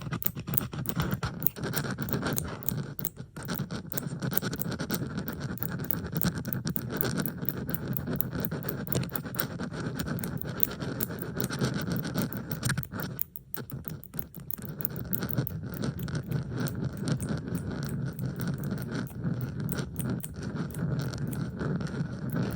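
Metal bobby pins handled and scraped close to the microphone: a dense run of rapid small clicks and scrapes, layered from several recordings, briefly thinning out about halfway through.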